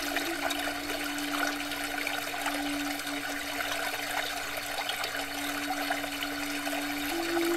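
Pond fountain jet spraying and splashing, a steady rush of falling water, with a steady hum underneath whose pitch steps between two close notes a few times.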